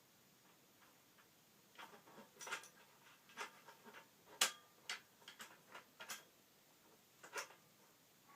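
Irregular light clicks and knocks of a bicycle headset press and headset cups being handled and fitted into the frame's head tube, a dozen or so, the sharpest about halfway through.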